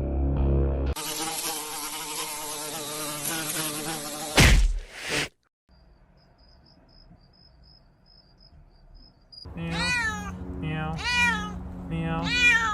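A string of separate sounds: music for a moment, then a steady noisy buzz for about three seconds, a few loud knocks, a near-quiet lull, and a domestic cat meowing about four times near the end.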